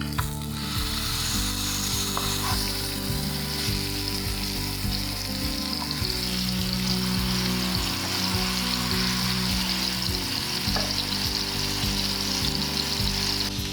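Food frying in a hot pan, a steady sizzling hiss that starts about half a second in, over background music.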